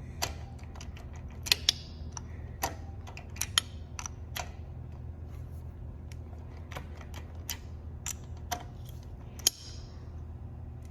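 Scattered, irregular sharp clicks and metallic clinks of hand tools and motorcycle engine parts being handled, over a steady low hum.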